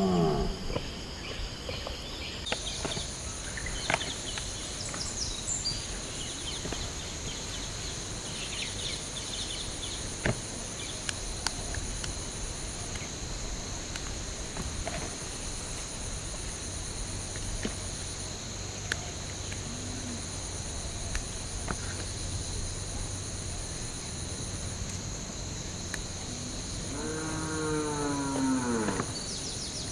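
Steady outdoor insect chorus, several high buzzing tones at once, the highest switching on and off every few seconds. A few faint clicks fall through it, and near the end a long animal call rises and then falls in pitch.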